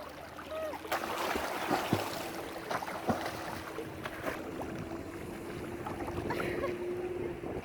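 Sea water washing and breaking on a beach. A steady low hum, such as a distant motor, runs under it from about a second in until near the end.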